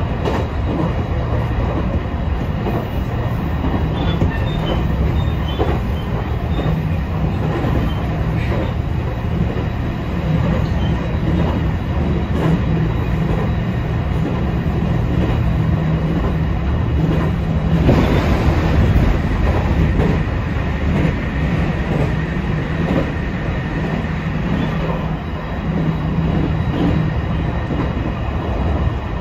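JR East E721 series electric train running at speed, heard from on board: a steady rumble of wheels on rail with a faint steady whine above it, briefly louder about two-thirds of the way through.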